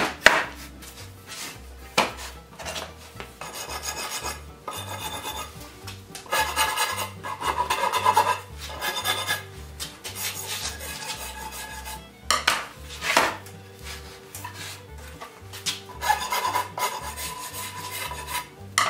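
A hand tool rasping along the edge of a wooden timber in runs of quick strokes with pauses between, shaping the wood. There are a few sharp knocks as the timber is handled.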